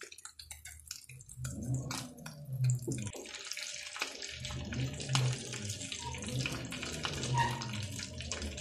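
Egg-and-breadcrumb-coated chicken lollipops sizzling and crackling in hot oil in a pan. The sizzle swells about a second and a half in as the pieces go into the oil.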